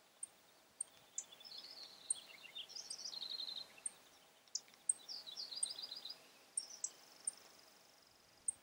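A small songbird singing faint phrases of quick, high, trilling notes that fall in pitch. Behind them run short, very high ticks, about two a second.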